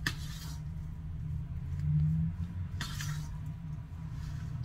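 A utensil scraping and clinking against a steel mixing bowl while stirring crumbly cottage cheese with sugar: two short strokes, one right at the start and one about three seconds in, over a steady low hum.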